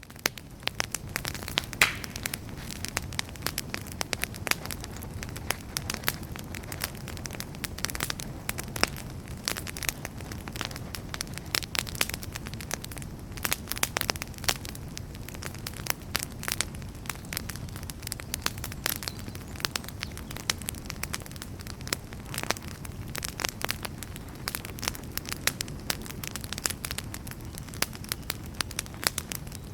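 Wood campfire crackling: many sharp snaps and clicks over a steady low rush of burning flames.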